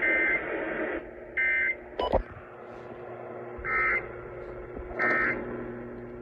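Emergency Alert System end-of-message data bursts heard over the radio: short, buzzy digital warbles, two near the start and two more in the second half, each set about a second and a half apart, over a steady radio hiss and hum. A sharp click comes about two seconds in.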